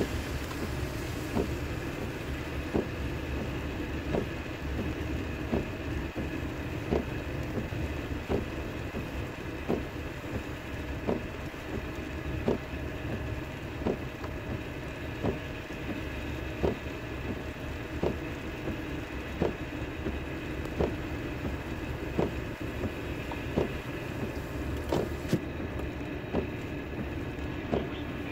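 Car cabin noise while driving on a wet road: a steady low rumble of tyres and engine, with a sharp click repeating about every second and a half.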